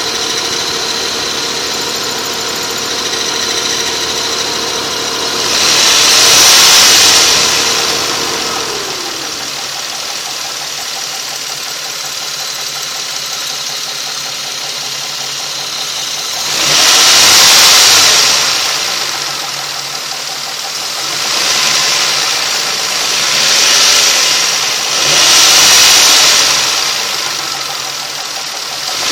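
Nissan Maxima engine idling, revved briefly five times with the pitch rising and falling back each time. The noise under it is one the owner cannot place: engine knock, a timing chain tensioner rattle, or normal running.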